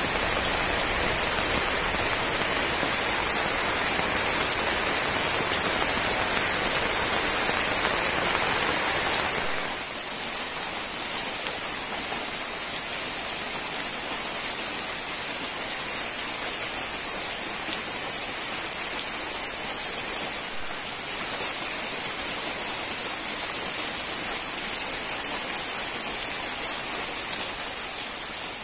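Heavy rain falling steadily on broad-leaved tropical plants and trees, an even hiss of drops on the leaves. About ten seconds in it drops to a somewhat lighter, thinner sound, then swells a little again later.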